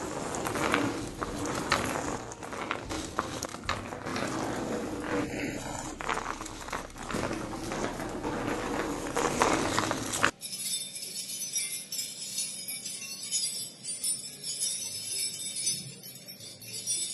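Dense rustling noise with many sharp clicks and knocks. About ten seconds in it cuts off suddenly and is replaced by bells jingling continuously.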